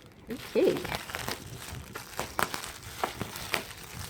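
Insulated shipping packaging crinkling and rustling as it is unpacked by hand, a string of short, irregular crackles.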